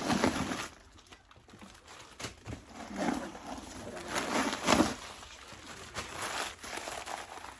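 Rustling and handling noises from a new shoulder bag being opened and handled, in several short bursts with quieter gaps between.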